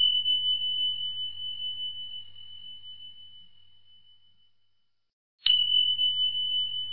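A high, bell-like ding rings on and fades away over about four seconds. A second ding is struck about five and a half seconds in and rings on.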